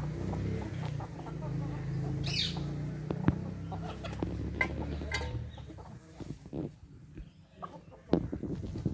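A flock of hens and roosters clucking while they peck at scattered rice on bare dirt, with many short sharp taps and one brief falling high call a little over two seconds in.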